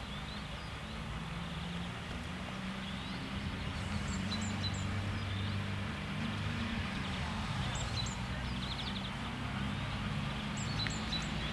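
Low hum of an approaching diesel railcar's engine, slowly growing louder, with small birds chirping in short bursts several times.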